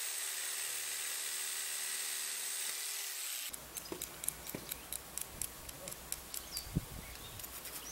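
A handheld electric saw running steadily as it cuts, stopping abruptly about three and a half seconds in. Then a string of light clicks and short scratches as a thin metal pick scrapes over the face of a small two-stroke engine's crankcase half.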